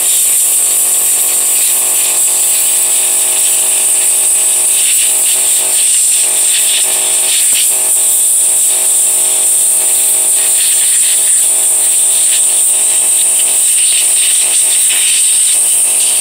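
Compressed-air blow gun hissing loudly and steadily as it blows dust out of a leaf blower's pleated cylindrical air filter. The hiss wavers as the nozzle is moved over the pleats, with a steady low hum underneath.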